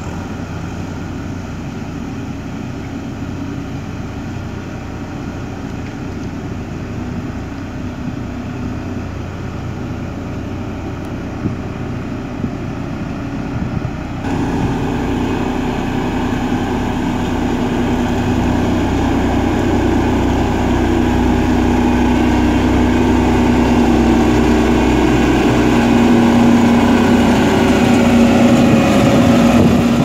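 Diesel engine of a JCB single-drum road roller running steadily as it drives closer, growing louder over the span, with a sudden step up in loudness about halfway.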